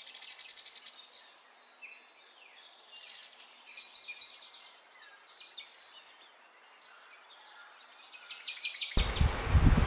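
Small birds chirping and singing, with a fast repeated trill at the start and many short calls after it. Near the end, a steady rush of noise comes in abruptly.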